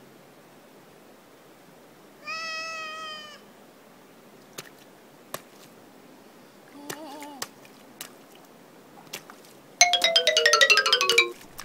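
A short end-card jingle: a quick run of bright chiming notes stepping downward, about ten seconds in and the loudest part. Earlier come a high, wavering voice-like note lasting about a second, a shorter lower one, and a few faint clicks.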